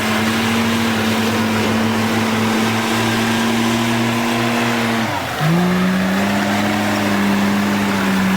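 Komatsu bulldozer's diesel engine running hard while pushing dirt, its pitch steady, then dipping sharply about five seconds in and climbing back as the engine takes up the load again.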